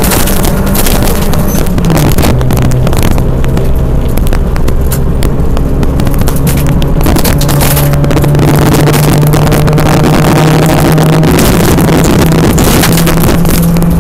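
Rally car's engine running hard, heard from inside the cabin on a gravel stage, with tyre and gravel noise and many small clicks of stones under the car. The engine note drops about two seconds in, then rises again about seven to eight seconds in and holds steady.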